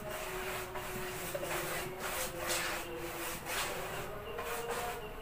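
Small paintbrush stroking back and forth over a large woofer's ribbed cone, brushing on a clear waterproofing coating: a series of soft rubbing swishes, about two or three a second.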